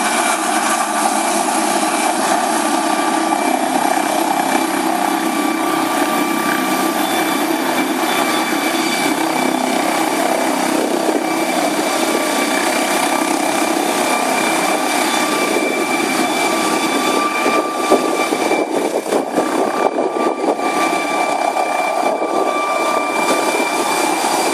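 Air ambulance helicopter running on the ground with rotors turning: a steady turbine whine over the rotor noise. Past the middle the sound grows uneven and gusty as the helicopter lifts off and climbs away.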